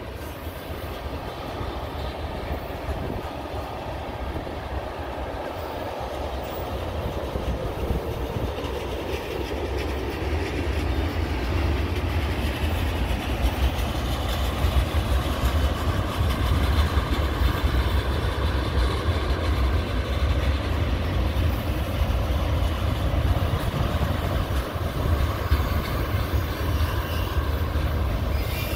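Freight train of tank cars rolling past: a steady rumble of steel wheels on the rails, growing louder partway through.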